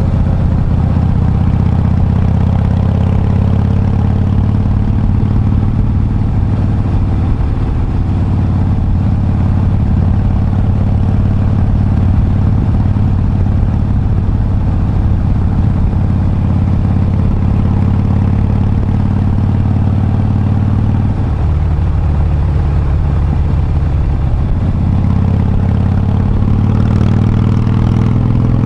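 Harley-Davidson Breakout's V-twin engine running under way at steady revs. The pitch drops about 21 seconds in as the bike slows, then climbs again near the end as it picks up speed.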